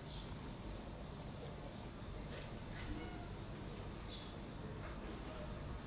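A continuous high-pitched insect trill, holding one steady pitch, over faint low outdoor background noise.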